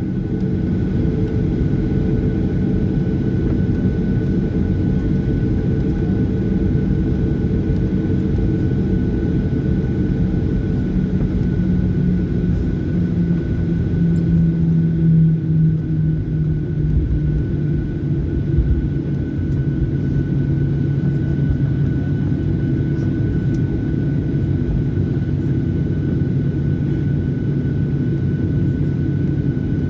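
Jet airliner's engines running steadily at low power, heard from inside the passenger cabin as a deep drone with a faint high whine. The low hum drops slightly in pitch about 13 seconds in.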